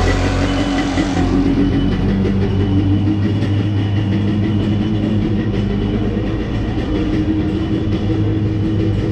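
Yamaha jet ski engine idling steadily out of the water, running for a fresh-water flush that rinses salt from its cooling passages.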